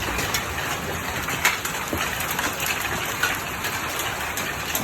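Large hailstones pelting the ground in a severe thunderstorm: a steady dense clatter of rain and hail with many sharp, separate hailstone strikes.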